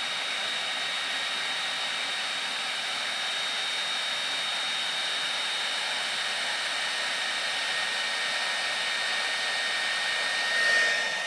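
Conair Infiniti D214SR tension blow dryer running steadily on heat: an even rush of air with a thin high whine, briefly louder near the end.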